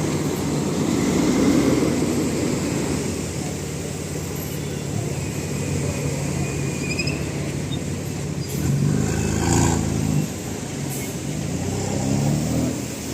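BMW car's engine and exhaust rumbling loudly, swelling louder about nine seconds in and again near the end as it is revved or accelerates.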